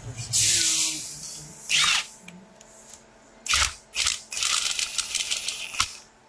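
Cordless impact tool running the rocker-shaft bolts down on a Duramax diesel cylinder head in several short bursts, the longest about a second and a half near the end. The bolts are only being run down snug with the impact, not tightened; final torque is done by hand.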